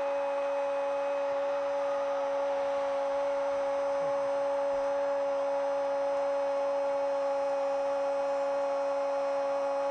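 A football commentator's long goal shout, 'Goooool', held on one steady note without a break.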